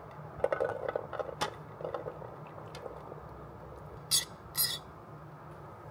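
Kitchen utensils clinking and scraping against cookware and dishes, with a cluster of light clinks in the first two seconds and two short, sharp scraping noises about half a second apart around four seconds in.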